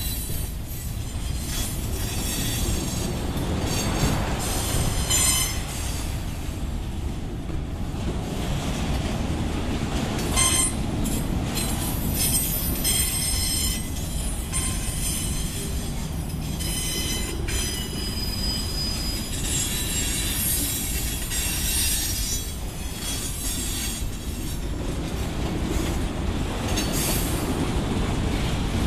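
Freight train boxcars rolling past, with a steady low rumble of wheels on rail. Short high-pitched wheel squeals come and go throughout.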